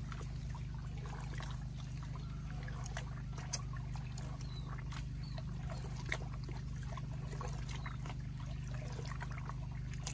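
Water sloshing and trickling as a gold pan is swirled and washed in muddy water, with scattered small splashes. Underneath, a small Robin engine runs with a steady low drone.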